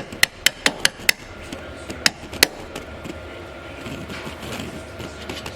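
Hammer tapping on a steel suspension bolt to drive it out: a quick run of five sharp metallic taps in the first second, then two more about two seconds in.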